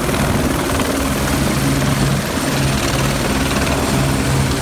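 Airbus AS350 A-Star tour helicopter running close by as it hovers low and settles onto the pad: a loud, steady drone of turbine and rotor with an even blade chop.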